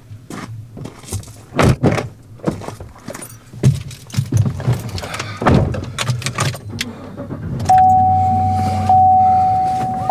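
Clicks, knocks and jangles of someone settling into a car. About three-quarters of the way in, a steady electronic warning tone from the car starts and keeps sounding.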